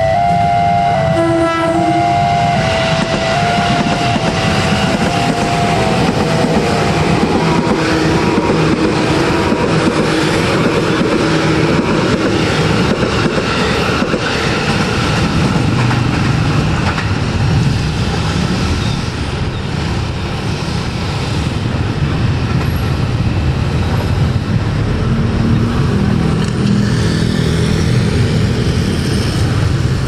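A KRL Commuterline electric commuter train passing close by, its wheels clattering steadily along the rails. Its horn sounds twice in the first two seconds, the tones trailing off over the next few seconds.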